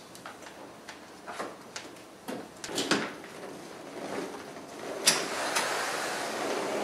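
A large hard-shell equipment case being tipped and moved across the floor, with scattered knocks and clunks. About five seconds in comes a sharp click, then a steady rushing noise.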